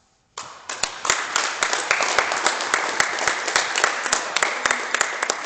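A small group applauding, with separate hand claps audible, starting suddenly about half a second in and carrying on steadily.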